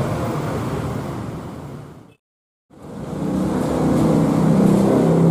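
Steady background noise fades out, then after a brief silence a Scania K360iB coach's diesel engine runs low and steady, growing louder over about a second as the bus pulls in.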